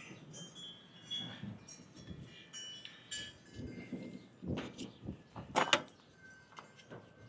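Light clinks and a few sharp clicks of small parts being handled, with faint, short, high ringing tones near the start.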